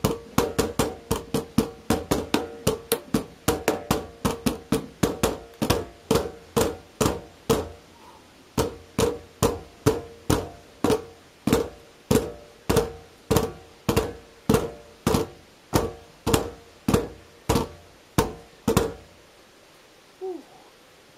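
Nunchaku beating the lids of two green plastic bins played as drums. Quick, steady hits come at about three a second, slow to even single strikes about 1.5 a second near the middle, and stop about two seconds before the end.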